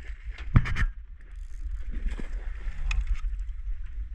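Wind buffeting the microphone over a boat on choppy water, with clicking and knocking from a spinning reel and rod being worked while fighting a tuna. A cluster of sharp knocks comes about half a second in, and another click near three seconds.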